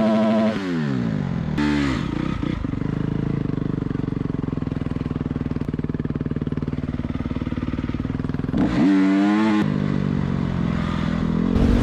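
Dirt bike engine under way: the revs drop at the start, it then runs at an even pace for several seconds, revs up sharply about nine seconds in and climbs again near the end.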